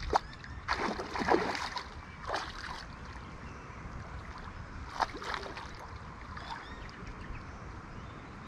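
Hooked common carp thrashing in shallow water at the bank's edge, with a run of splashes over the first few seconds and another splash about five seconds in.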